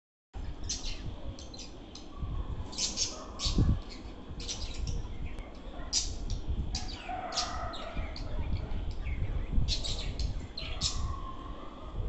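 Pet budgerigars chirping and chattering in a cage: many short, sharp high chirps in quick irregular succession, mixed with some lower warbling.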